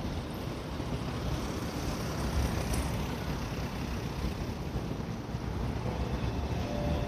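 JR Central 313-series electric train standing at the platform with its onboard equipment running: a steady low hum and rumble.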